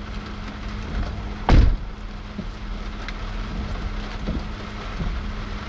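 Wind rumbling on the microphone over a steady low hum, with one loud, short thump about a second and a half in.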